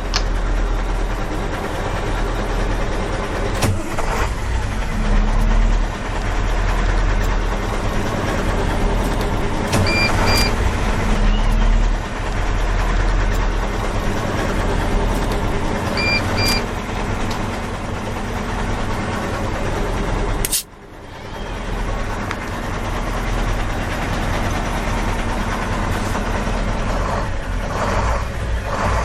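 Continuous vehicle engine sound, with a short double beep about ten seconds in and again about six seconds later, and a brief break about two-thirds of the way through.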